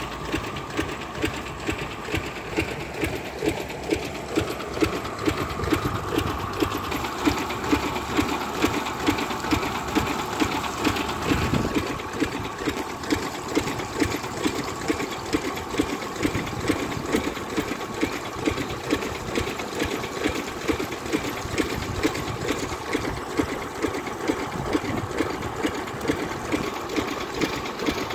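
10-horsepower farm engine running steadily, with an even, regular beat.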